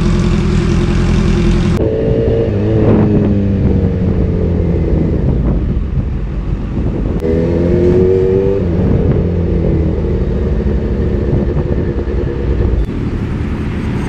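Kawasaki Z H2's supercharged inline-four engine running: a steady idle at first, then the engine note rises and falls as it is revved. The sound changes abruptly a couple of times.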